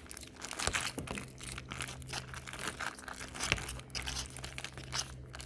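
Plastic bags crinkling and crackling in a dense, irregular run as sticky slime is worked out of them by hand.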